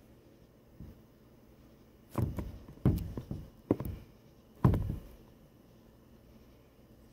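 A quick run of about five knocks and thumps, starting about two seconds in and ending near five seconds, from the propped-up phone being bumped and jostled at the window. A fainter knock comes just before.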